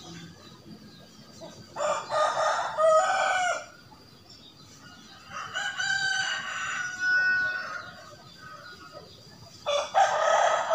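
A rooster crowing three times, each crow about two seconds long, with a faint steady high-pitched tone underneath.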